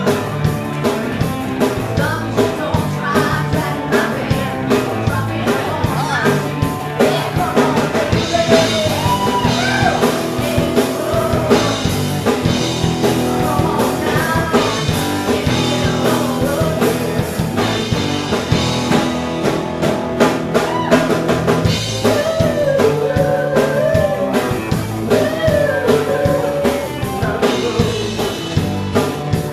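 Live rock band playing through a pub PA: a drum kit beat, electric guitars and bass, with a woman singing lead.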